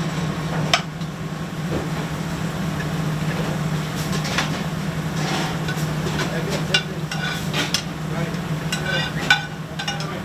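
Food sizzling in a hot pan with several sharp clanks of a metal utensil or pan being stirred and handled, over a steady low kitchen hum.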